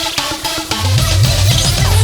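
DJ dance remix music with a fast, regular beat; a heavy bass line comes in just under a second in and the music gets louder.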